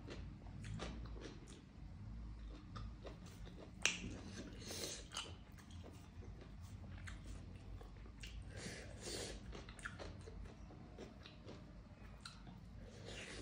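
Close-miked eating: soft chewing and mouth sounds, with faint squishing as maize dhido and curry are mixed by hand on a metal plate. There is a sharp click about four seconds in.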